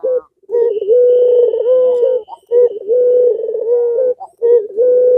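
Puter pelung, a domestic Barbary dove, cooing in long drawn-out phrases. There are three coos, each opening with a few wavering notes and then holding one long steady note, with short breaks between them.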